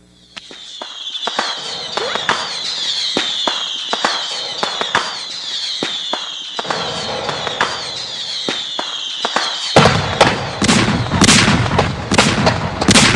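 Cartoon fireworks: high wavering whistles with scattered sharp crackles, then from about ten seconds in a louder run of bangs and crackling as the fireworks burst.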